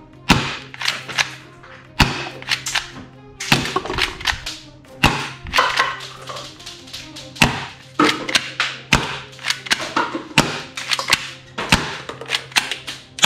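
A plastic toy pistol being handled, its parts clicking and knocking together in a rapid string of sharp clicks, with louder knocks every second or two. Background music plays underneath.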